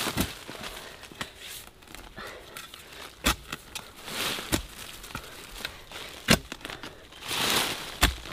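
A long metal digging bar driven into soil and roots to dig out a bamboo shoot: five sharp strikes, one to two seconds apart, with dry leaves and loose earth rustling and scraping between them.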